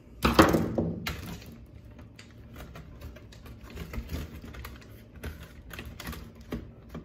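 Plastic laptop part clattering down onto a wooden bench about a quarter second in. Then a run of light clicks and taps as the plastic and metal parts of the laptop chassis are handled and the optical disc drive is worked loose.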